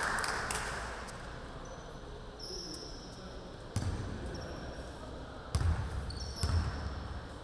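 A basketball bounced three times on a hardwood gym floor, the pre-free-throw dribbles, each bounce a dull thump with hall echo. Short high squeaks of sneakers on the court are heard between them.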